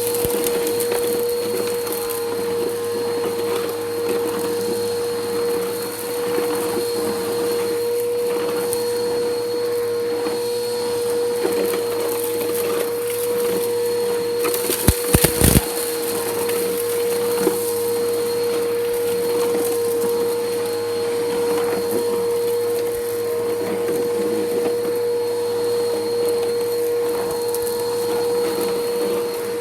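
Bissell Powerforce Helix 1240 upright vacuum running with a steady motor whine, crackling and crunching as it sucks up grit and debris from concrete. A short cluster of loud knocks comes about halfway through.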